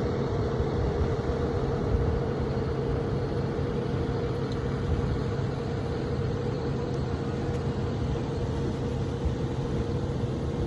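Steady road and engine noise of a car driving, a continuous low rumble with a constant hum.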